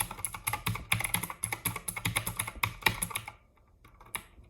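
Typing on a Royal Kludge RK61 60% mechanical keyboard: rapid key clicks for about three seconds, then a brief pause and a few scattered keystrokes near the end.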